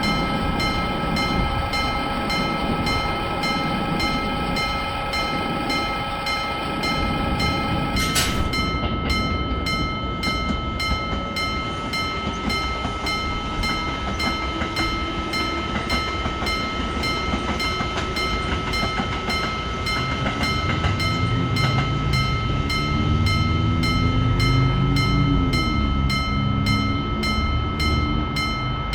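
Japanese railway level crossing alarm ringing its 'kan-kan' bell in a steady, rapid beat, its tone changing about eight seconds in. A train's running noise builds under it in the second half, with a motor tone gliding down and up as the train passes.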